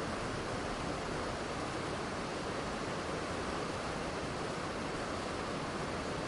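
Waterfall pouring steadily: a constant, even rush of falling water with no changes.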